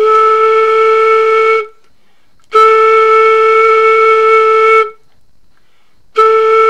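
Flute headjoint blown on its own with its open end stopped by the palm, sounding a steady, breathy A three times, with short gaps between the notes. The last note starts near the end. The stopped headjoint gives a note that reads right on A.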